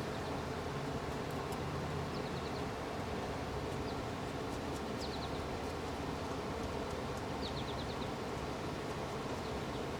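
Steady background hiss with a small bird chirping in short runs of a few quick, high notes, about two seconds in, near the middle and again past seven seconds.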